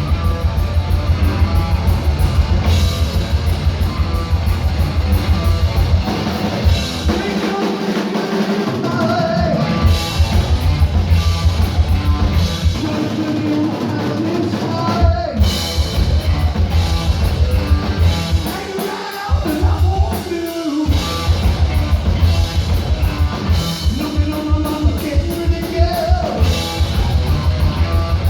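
Heavy metal band playing live: rapid, driving kick drums under loud distorted electric guitars, with a couple of brief breaks in the drumming.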